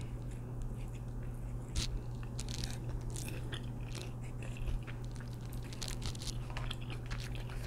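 Faint crinkles and soft clicks of a plastic sauce dipping cup and its peeled foil lid being handled and squeezed over a sandwich bun, heard close up on an amplified microphone, over a steady low hum.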